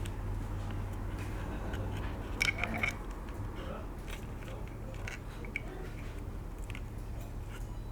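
Faint, scattered clicks and small rattles of a thin electrical wire and small plastic kit parts being handled while the wire is coiled, with a short cluster of clicks about two and a half seconds in. A steady low hum runs underneath.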